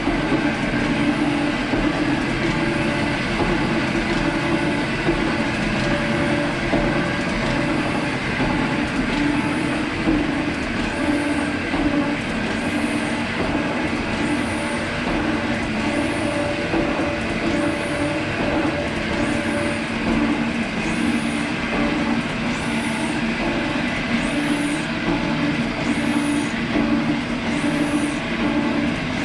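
G&E metal shaper running under power, its ram stroking back and forth at about one stroke every second and a half as a shear tool takes a finishing cut across an aluminum plate. A steady gear-and-motor hum, with a short high-pitched sound on each stroke that stands out clearly from about ten seconds in.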